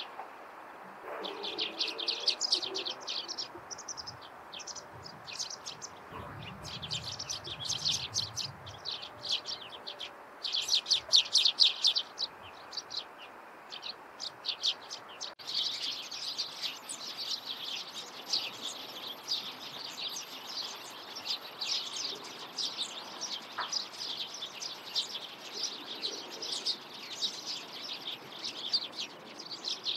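Small wild songbirds chirping: many short, high chirps in quick spurts, turning into a busy, continuous chatter about halfway through.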